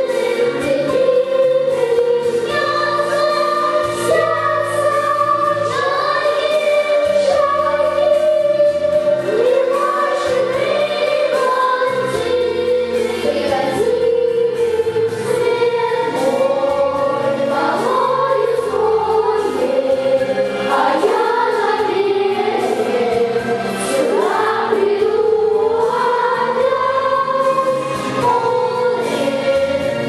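Children's vocal group singing a song into handheld microphones over instrumental accompaniment.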